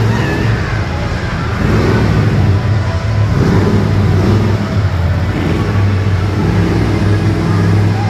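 Radio-controlled monster truck running on a dirt track: a steady motor drone that rises and falls a little as it drives.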